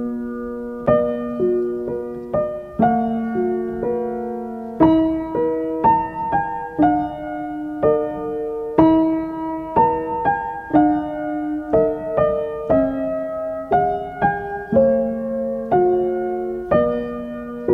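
Gentle background piano music, notes and chords struck at an unhurried pace.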